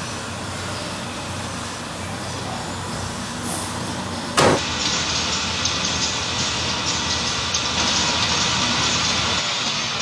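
Steady machine noise of a factory workshop, with one sharp knock about four and a half seconds in, after which a louder hissing noise takes over.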